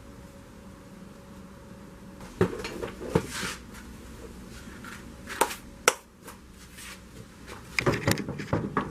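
Sharp clicks and clatter of hard parts being handled. There are single knocks about two and a half, three, five and a half and six seconds in, then a quick run of clattering near the end.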